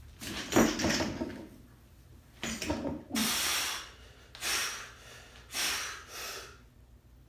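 Loaded barbell clean: the bar and plates rattle and clank as a weightlifter pulls and catches it at his shoulders, about half a second in. Then come three heavy, forceful breaths, about a second apart, as he stands holding the bar before the jerk.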